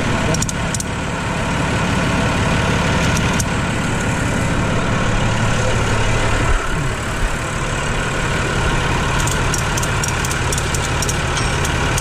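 Massey Ferguson 6170 tractor's diesel engine running steadily at idle, with a few light metallic clicks about a second in and a cluster of them near the end.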